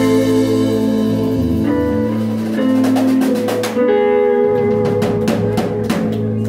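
Live rock band playing an instrumental passage on electric guitars, electric bass and drum kit, with long held guitar and bass notes over sparse drum and cymbal hits.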